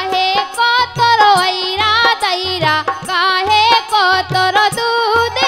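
A woman singing a Bundelkhandi Kartik folk song, her melody bending and gliding, with harmonium and a dholak striking about twice a second.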